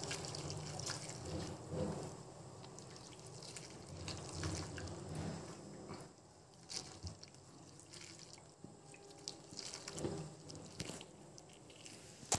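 A hand squeezing and mixing chopped onion, tomato, green chillies and herbs in tamarind water in a steel bowl: irregular sloshing, splashing and dripping of the water. It is busier in the first half, then settles to occasional splashes.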